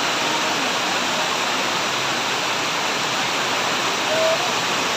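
Rushing floodwater and heavy rain: a loud, steady, unbroken rush of water.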